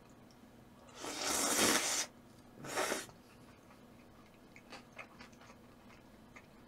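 Eating noises close to the microphone: two short noisy bursts, the first about a second long, followed by a few faint clicks.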